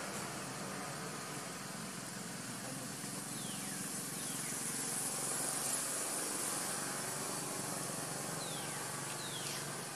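Steady outdoor background hiss with a faint low hum. Two pairs of short falling whistles sound over it, one pair about three to four seconds in and the other near the end.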